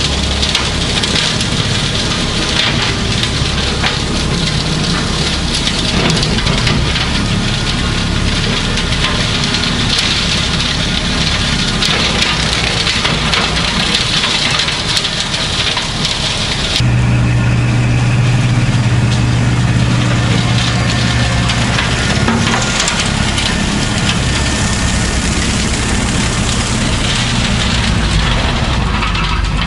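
Kubota B2650 compact tractor's diesel engine running steadily under a heavy hiss. About halfway through the sound changes abruptly: the hiss thins and a deep steady hum comes forward.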